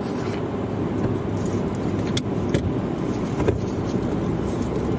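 Steady rumble of a vehicle's road and engine noise heard from inside the cabin, with a few light clicks.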